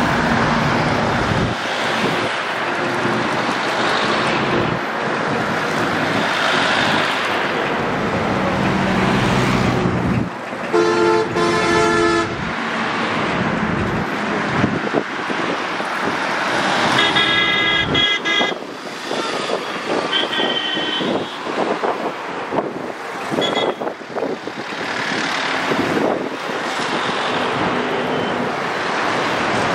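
Diesel tractor engines running along a column of tractors, with steady road traffic noise. A vehicle horn blows for about two seconds a little after a third of the way in, and horns honk again in several shorter blasts a little past the middle.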